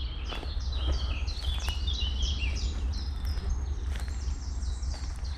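Songbirds singing: a dense, rapid run of short repeated high chirps, over a steady low rumble, with a few sharp clicks here and there.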